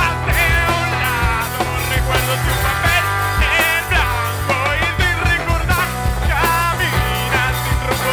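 Live rock band playing: a singer over electric guitar, bass guitar and drums, with a steady bass line under a bending vocal melody.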